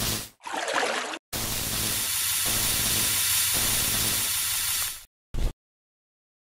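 Electric shock sound effect: a steady crackling hiss with a low hum under it, lasting about three and a half seconds and cutting off suddenly. Shorter noise bursts come before it, and one brief burst follows just after.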